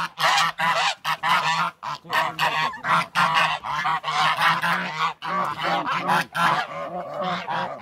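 A flock of Linda geese honking and cackling, many short calls overlapping, agitated after being driven off.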